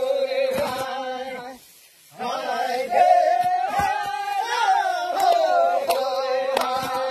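A group of men singing a Karbi folk work chant together on long held notes, breaking off for about half a second near the two-second mark before starting again. A few thuds of hoes striking the soil sound through the singing.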